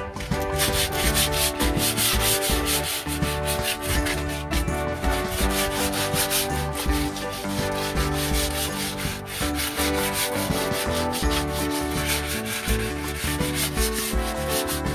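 120-grit sandpaper rubbed by hand back and forth along a van's steel exhaust pipe, a quick run of rasping scrapes, smoothing out wire-brush grooves and baked-on dirt.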